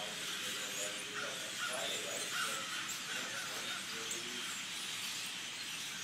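A large flock of birds calling together in the trees: a dense, continuous chorus of overlapping chirps and squeaks, with lower-pitched calls mixed in during the first few seconds.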